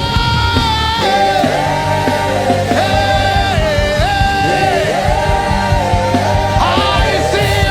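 Gospel worship music: a voice singing long held notes that step from pitch to pitch over a steady low accompaniment.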